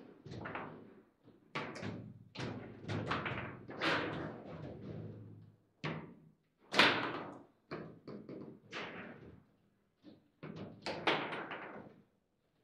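Foosball table in play: sharp knocks and clacks of the ball and rods against the plastic figures and table, coming in quick irregular clusters with short pauses between. The hardest hit is about seven seconds in.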